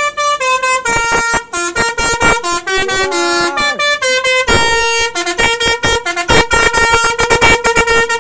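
Bus multi-tone musical air horn (a 'telolet' horn) playing a rapid tune: several loud horn notes sound together and switch pitch every fraction of a second, with brief breaks between phrases.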